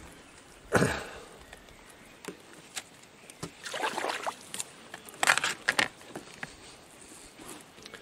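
Wet monofilament gill net being hauled up by hand out of lake water, with water splashing and dripping off it. A sharp knock comes just under a second in, and two short bursts of splashing come around four and five seconds in.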